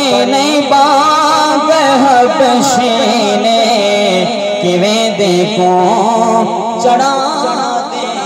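A man singing a Punjabi naat (devotional praise poem) into a microphone, his voice amplified through a PA loudspeaker. The voice carries long phrases with wavering, ornamented pitch.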